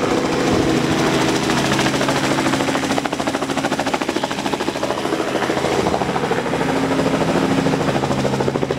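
Helicopter rotor chop and engine noise running steadily: a fast, even pulsing over a steady hum.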